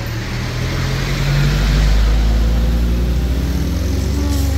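A motor vehicle's engine running close by: a low, steady rumble that swells to its loudest about two seconds in and then holds.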